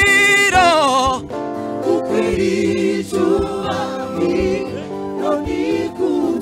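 Gospel praise-and-worship music. A sung note with strong vibrato ends about a second in, then softer singing continues over steady held chords.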